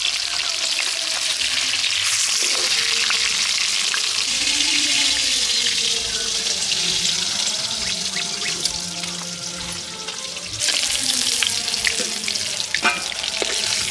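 Fish pieces sizzling steadily as they shallow-fry in hot oil in an iron wok, the hiss swelling again near the end, with a few clicks and scrapes of a metal spatula turning them.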